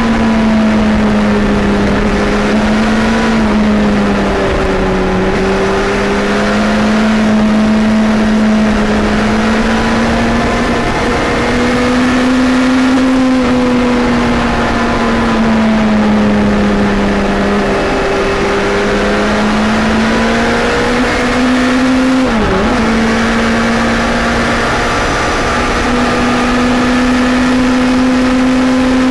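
Suzuki Hayabusa Gen 2's 1340 cc inline-four engine running at a steady cruise, its note rising and falling gently with the throttle, with one brief quick dip in pitch about three-quarters of the way through. Wind rushes over the helmet camera's microphone.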